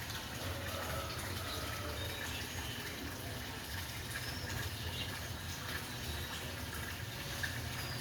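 Water running steadily into a small koi pond, a continuous trickling and splashing.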